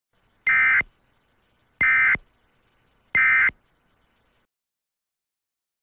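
Emergency Alert System end-of-message (EOM) data bursts: three short digital tone bursts, evenly spaced just over a second apart, signalling the end of the alert.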